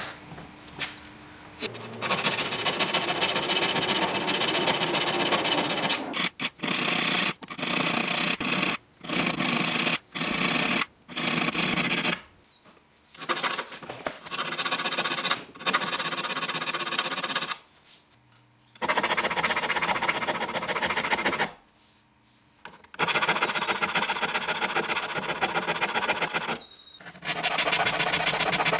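File strokes across the steel teeth of an old Japanese maebiki (whaleback) rip saw, sharpening it: a harsh metallic scraping in runs of quick strokes broken by short pauses.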